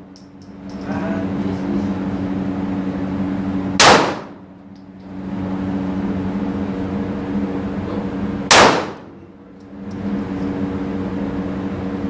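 Two gunshots about five seconds apart over a steady low hum. The sound ducks for about a second after each shot.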